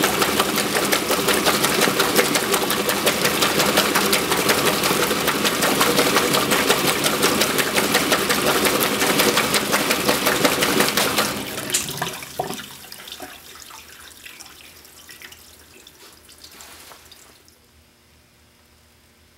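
1963 Frigidaire Custom Imperial top-load washer agitating, its Deep Action agitator churning and splashing the wash water with a rapid rhythm over the running belt-drive transmission. About eleven seconds in the agitation stops, and the water sloshes and settles, fading away.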